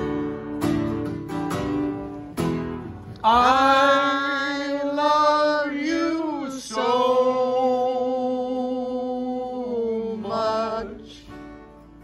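A man sings live in a strong voice, holding long notes, accompanied by a strummed small acoustic string instrument. The strumming drops out about three seconds in while he holds the notes, and comes back quietly near the end.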